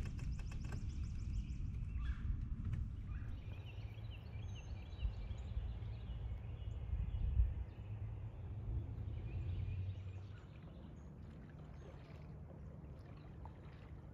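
Outdoor ambience: a steady low rumble with faint, short high chirps like small birds over it. The rumble drops away about ten seconds in.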